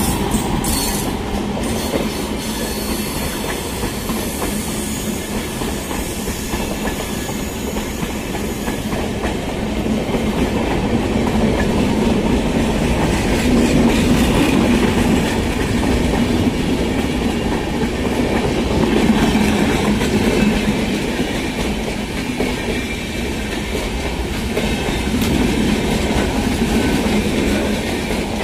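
Express passenger train of LHB coaches behind a WAP7 electric locomotive running through at speed: a steady rumble of wheels on the rails with clickety-clack over the rail joints.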